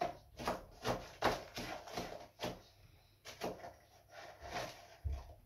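Quick, repeated scraping strokes, about three a second with a short pause near the middle, from dry malt that has set hard into lumps being scraped and broken up to dose the bottles.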